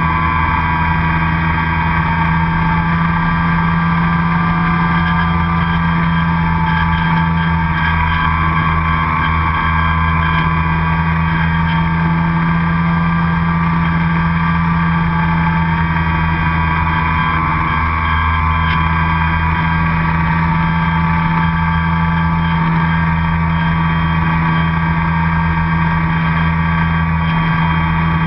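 RC airplane's motor and propeller heard from the onboard camera, running steadily in flight with a slight drift up and down in pitch.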